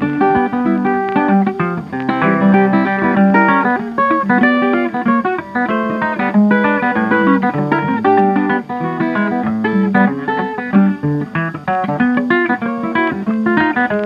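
Background music: guitar playing a steady run of quick plucked notes.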